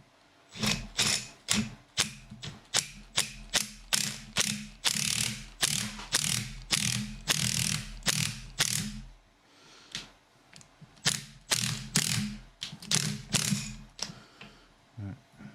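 Ratchet wrench clicking in quick repeated strokes, about two and a half a second, turning the screw of a ball joint press to draw a new rear wishbone bush through its eye. The strokes stop for about a second and a half just before ten seconds in, then start again.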